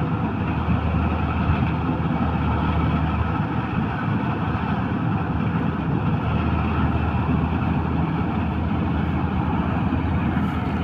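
Preet 987 combine harvester running steadily: a continuous low engine drone under a dense rush of machinery noise.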